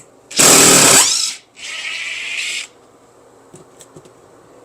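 Power drill run in two short bursts. The first is loud and lasts under a second, its motor pitch rising; the second, quieter and higher, comes about a second later.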